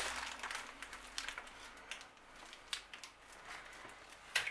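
Juice-soaked baking paper crinkling and rustling as it is peeled back off a roast, with a few sharp clicks, the loudest near the end.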